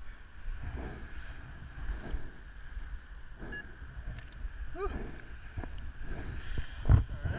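Wind rushing and buffeting over the pole-mounted camera's microphone as a tandem paraglider glides in low over the field to land, with a low thump near the end.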